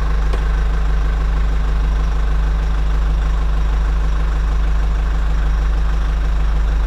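A tractor engine idling steadily, a deep, even hum with no change in speed, dubbed in as a sound effect for the toy tractor.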